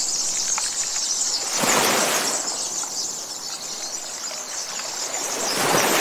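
Outdoor nature ambience: a steady high-pitched hiss with two swells of rushing wind, about four seconds apart, and a few faint bird chirps.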